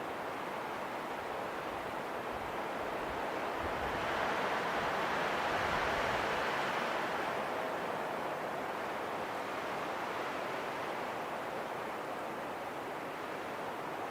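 Steady rushing wind that swells into a stronger gust partway through, then eases back.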